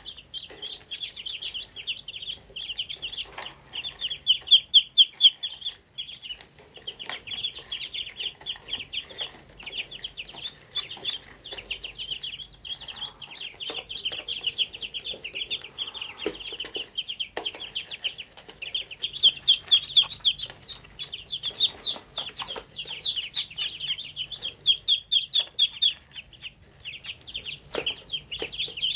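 A brood of domestic ducklings peeping together, a dense, continuous chorus of short high calls that swells louder in spells.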